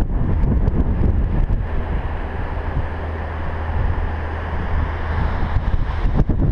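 Wind buffeting the microphone in a loud, uneven rumble, with the wash of surf breaking on the rocky shore beneath it.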